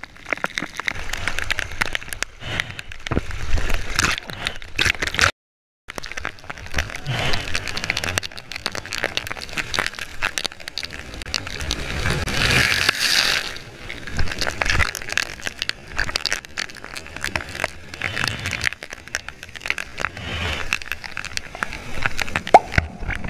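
Ocean surf heard from a waterproof camera at water level: water splashing and crackling against the housing with constant small clicks, and the hiss of a breaking wave swelling loudest about halfway through. The sound cuts out briefly about five seconds in.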